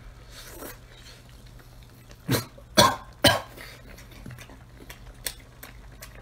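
A man coughs three quick times about half a second apart while eating, followed by small sharp mouth clicks as he chews.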